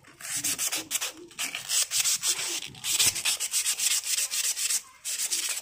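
Sandpaper rubbed by hand in quick back-and-forth strokes along a steel bolt, a cut-down vehicle center bolt being smoothed to serve as a motorcycle swing-arm axle.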